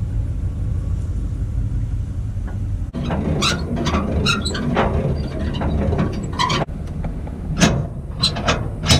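A vehicle running with a steady low rumble. From about three seconds in, clattering knocks and rattles sound over it.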